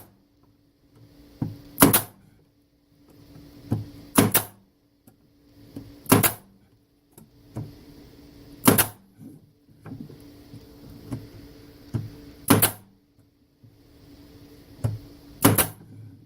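Staple gun firing staples into the wooden parts of Langstroth beehive frames: six sharp shots spaced about two to three seconds apart, each with a lighter click just before it.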